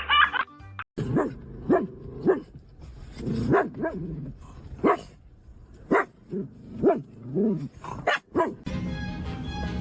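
A dog barking over and over in short, separate barks, about a dozen of them.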